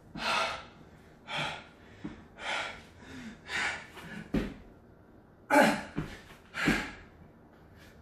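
A man breathing hard and fast from the exertion of burpees, a loud rasping breath about once a second. A few dull thumps, hands and feet landing on the exercise mat, come in the second half.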